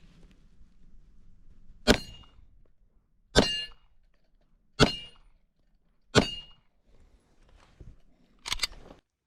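Gunshots: four single shots about a second and a half apart, then a quick pair near the end. Each of the first four is followed by a brief high metallic ring.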